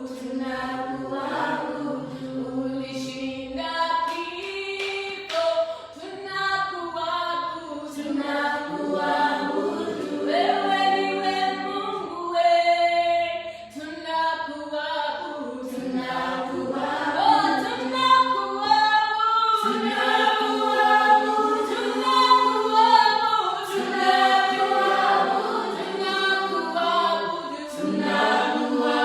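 Church praise team singing a gospel song in harmony, mostly unaccompanied, with sharp clicks like hand claps here and there.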